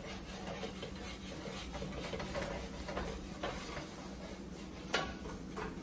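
Spatula scraping and stirring flour and pan drippings in a nonstick pan as a roux browns: faint, irregular scratching with light ticks, and a sharper knock about five seconds in.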